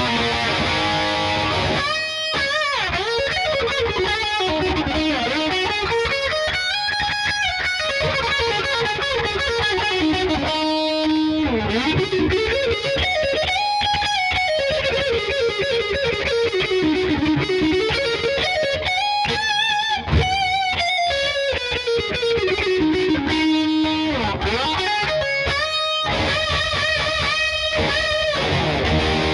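Schecter Tempest Custom electric guitar played through a distorted amp tone: fast lead runs and sweeping arpeggios that climb and fall in pitch in long arcs.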